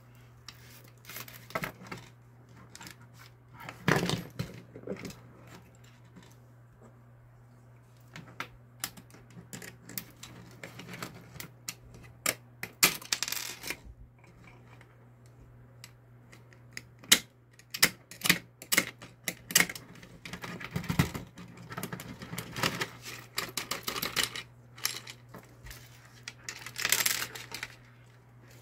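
Irregular clicks, knocks and rattles of hard plastic parts being handled and screwed with a hand screwdriver on a 3D-printed animatronic head and jaw, with a few short scraping stretches. A steady low hum runs underneath.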